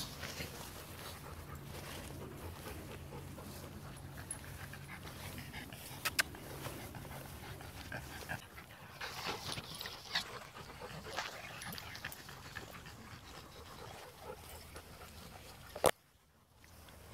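Dogs panting on a walk through tall grass, with scattered brushing noises and clicks. There is a sharp knock near the end, and then the sound cuts out suddenly.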